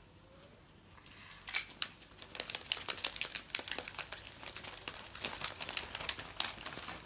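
Calico cat wrestling a feather wand toy on a tiled floor: busy, irregular crinkly rustling and scratching of the feathers and toy against paws and floor, starting about a second in.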